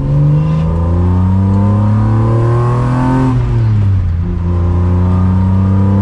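1996 BMW M3 E36's straight-six engine accelerating through the gears at part throttle, heard from inside the cabin. Its pitch climbs for about three seconds, drops at an upshift, then climbs again in the next gear.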